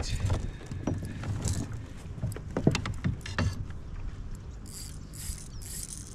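Scattered clicks and knocks of fishing gear being handled aboard a kayak, over a steady low rumble, with a few short hissing bursts near the end.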